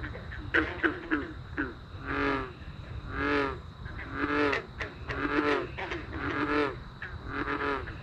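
Frogs calling at night: a series of six drawn-out croaks about a second apart, after a few shorter croaks at the start, over a steady low rumble.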